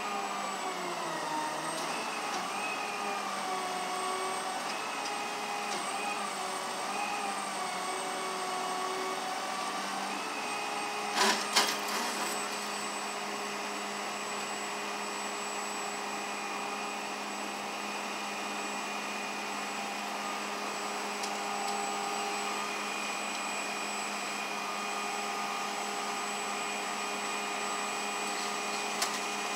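A machine running steadily, a motor-like hum with several tones that waver during the first ten seconds and then hold steady. A few sharp clicks come about eleven seconds in.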